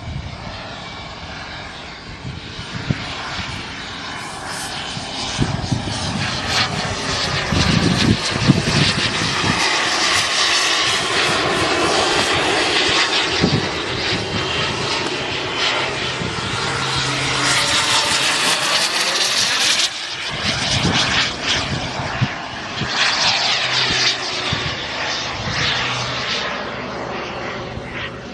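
Turbine engine of a radio-controlled model jet flying overhead: a continuous jet roar with a whine, growing louder over the first several seconds. Its pitch sweeps up and down as the jet passes and turns, and a high whine cuts off about two-thirds of the way through.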